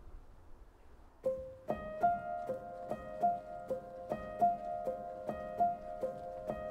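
Background music: after a faint first second, a tune of short repeated notes starts on a steady beat.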